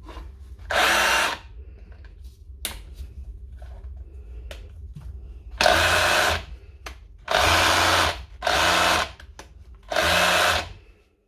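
Cordless DeWalt DCH273 SDS rotary hammer run in five short bursts of about a second each, one near the start and four close together later, with small clicks between the bursts. It is being test-run after its repair and reassembly.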